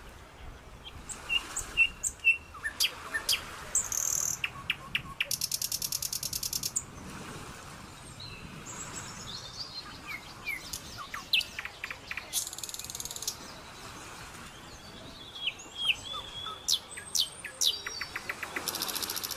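Birds calling: many short chirps and whistles, broken several times by a fast trill lasting a second or so.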